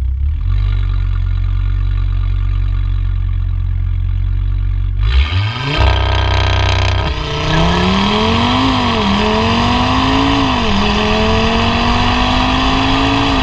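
The MTM-tuned Audi RS3 R's 2.5 TFSI five-cylinder engine, heard at the tailpipe of its MTM stainless-steel exhaust. It idles with a deep rumble, is blipped twice about five seconds in, then pulls away under acceleration, its note rising and dropping back at two upshifts and climbing again.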